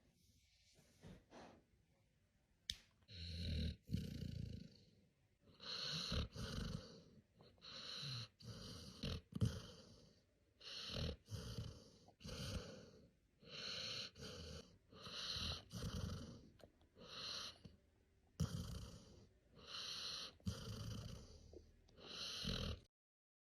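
A dog snoring, with rhythmic in-and-out breaths about a second apart. The snoring starts a few seconds in and cuts off suddenly near the end.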